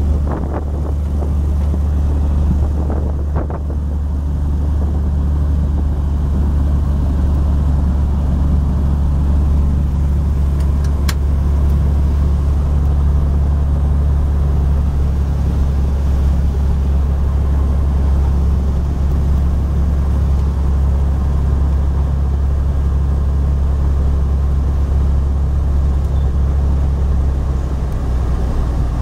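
Piston engine and propeller of a small single-engine high-wing airplane running at taxi power, a steady low drone heard from inside the cabin.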